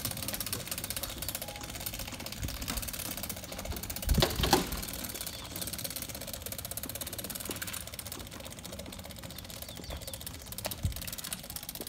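Nosedragger aircraft tug's chain drive and gears clicking rapidly as it moves a light plane by its nose wheel, with a louder clunk about four seconds in.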